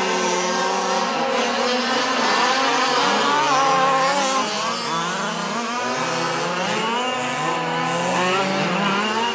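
Several fifth-scale petrol RC cars' small two-stroke engines running together, overlapping, their pitches repeatedly rising and falling as they accelerate and back off around the track.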